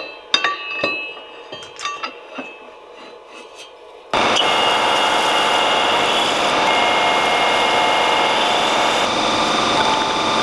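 A few sharp metal clinks and taps, then about four seconds in a metal lathe starts cutting: a loud, steady machining noise with a thin high tone as the tool turns down the end of a steel car axle held in the three-jaw chuck.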